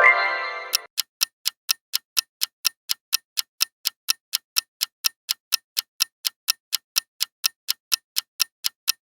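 Countdown-timer tick sound effect of a quiz, sharp even ticks about three a second. It opens with a short pitched sound effect lasting under a second.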